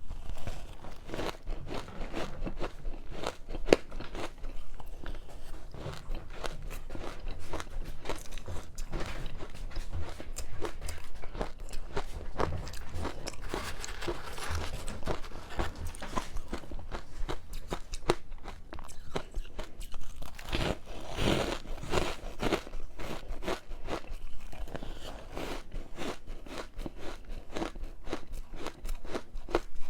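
Close-miked biting and chewing of ice coated in matcha powder: a dense, continuous run of crisp crunches, with a louder cluster of bites about two-thirds of the way through.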